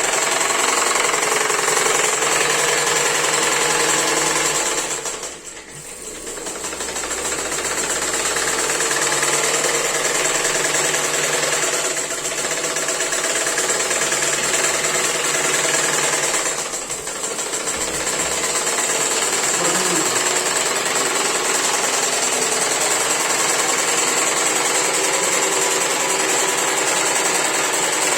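Sewing machine run by a Whirlpool washing machine motor through a cable-tie belt, its needle mechanism clattering rapidly and steadily. It slows briefly twice, about five seconds in and again past the middle, then picks back up to speed.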